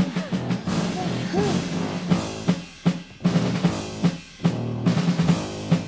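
Marching-band parade music with a steady drum beat of snare and bass drum, with short breaks about three and four seconds in.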